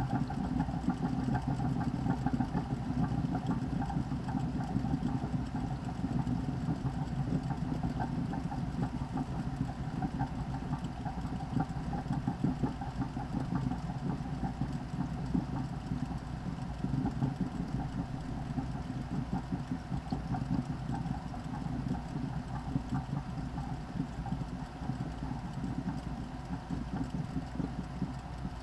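VIVOSUN 203 CFM 4-inch inline duct fan running steadily: a continuous low motor hum with air noise and no change in pitch.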